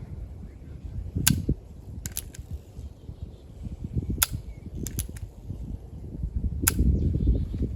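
Heritage Rough Rider .22 rimfire single-action revolver firing three sharp shots a few seconds apart. Fainter metallic clicks fall between the shots.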